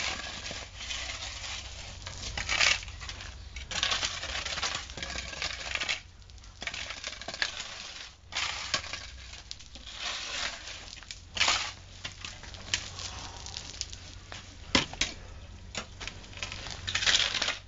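Shovels scraping and scooping through a dry pile of sand, gravel and cement on bare ground, in repeated gritty strokes about once every second or so, with one sharp knock near the end.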